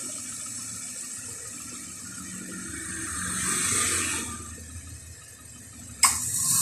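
2015 Subaru Impreza 1.6's air-conditioning system running with a steady high hiss that swells about three seconds in. A sharp click comes near the end. This car makes a cicada-like noise when its compressor starts.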